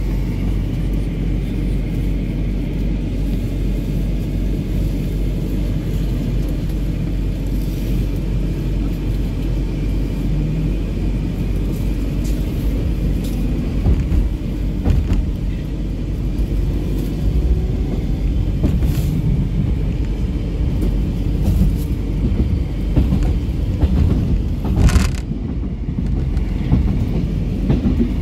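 Metro train heard from inside the car, pulling out of a station and gathering speed. A steady low rumble runs throughout, a faint motor whine rises in pitch in the middle, and wheels knock sharply over rail joints several times in the second half.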